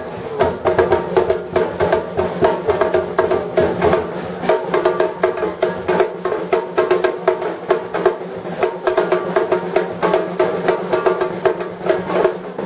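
Batucada drum ensemble playing a steady, driving rhythm of dense, rapid drum strokes.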